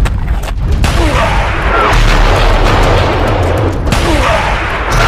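Cartoon fight sound effects: a loud, dense run of booms and blasts over music.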